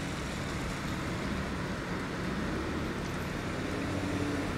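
Steady street ambience with a low, even hum of vehicle traffic.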